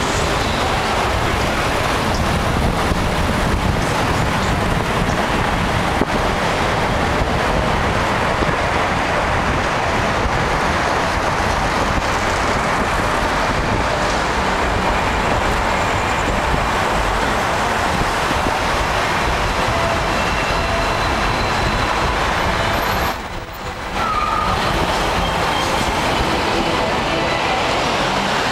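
Steady road and running noise from a moving vehicle in city traffic, a continuous rumble with hiss, dipping briefly near the end.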